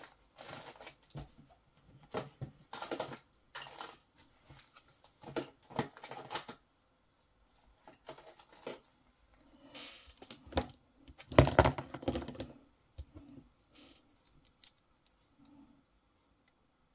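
Irregular plastic clicks, taps and short rustles of small tools and spring clamps being handled on a repair mat, with a louder clatter about eleven seconds in, then a few faint clicks.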